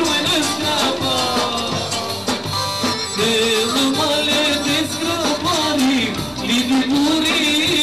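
Albanian song: a voice singing a melody over instrumental backing with a steady beat.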